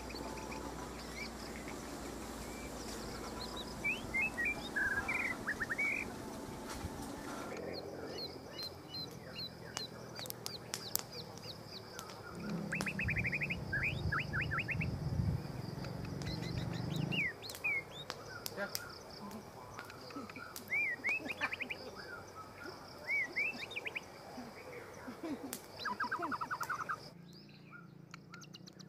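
Several wild birds chirping and calling, with short slurred notes and quick trills repeated throughout. A low rumbling runs for about five seconds in the middle.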